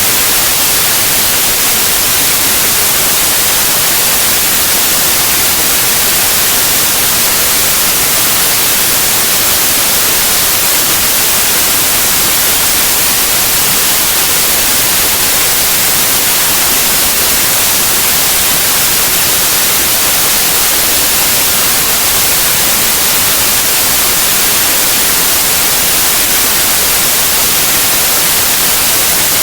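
White noise: a loud, steady, even hiss across the whole range, strongest in the treble, with no change in level or character.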